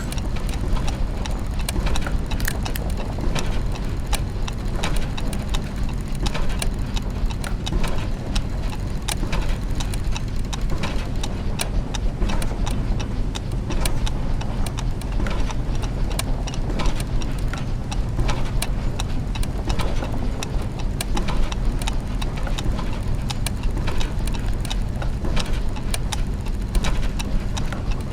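Clockwork mechanisms and gears: many overlapping clicks and ticks at an uneven rhythm over a steady low mechanical hum.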